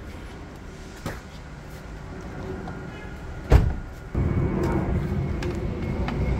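Screwdriver work on the plastic grille screws of a pickup's front end, with a light click about a second in and a sharp knock about three and a half seconds in. After that a steady low rumble sets in and lasts to the end.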